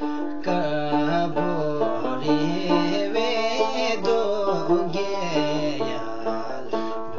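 Background music: a plucked-string melody.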